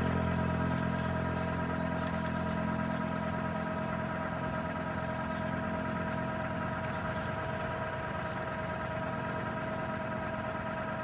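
A steady motor hum that holds several even tones without a break, fading slightly over time, with a few faint, short, high chirps above it.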